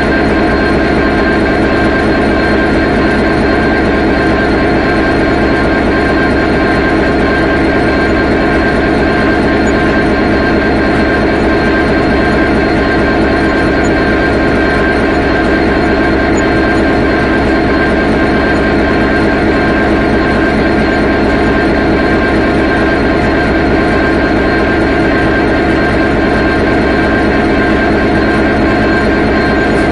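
Diesel locomotive engine running steadily: a loud, even drone with several held tones that does not change.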